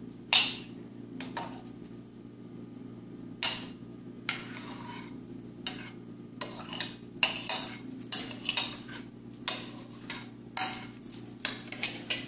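Metal spoon scraping and clinking against a plastic bowl as diced strawberries are pushed out onto a plate of fruit: a few separate scrapes at first, then quicker, more frequent ones from about halfway through.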